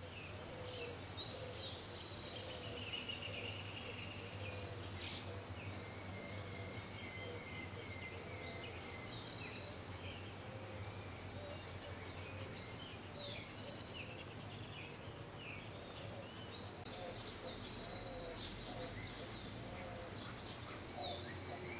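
Several small birds calling and singing: repeated chirps, short rising and falling whistles and a few buzzy trills, over a low steady hum.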